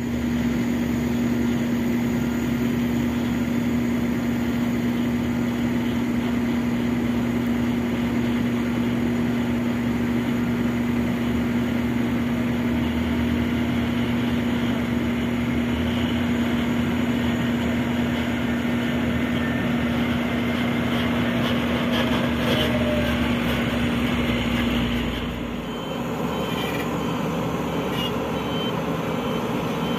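Diesel engine of a heavy dump truck running with a steady drone as the truck drives across a dirt site. About 25 seconds in, the sound changes to a diesel excavator working, with a repeating high-pitched warning beep.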